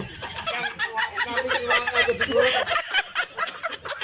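Several men laughing and chuckling together, their laughs overlapping with a few bits of talk.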